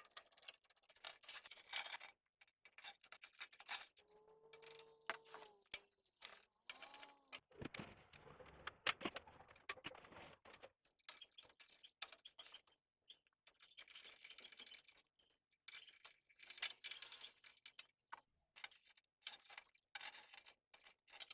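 Irregular small clicks, taps and rattles of hardware and screws being handled and fitted into a PC case, with a couple of brief squeaks about four to five seconds in.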